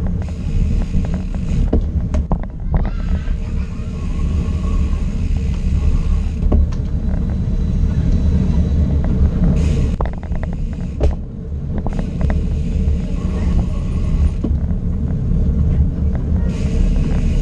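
Steady low rumble of a bicycle ride through narrow alleys: wind buffeting the camera's microphone and the bike rattling over the pavement, with scattered clicks and knocks.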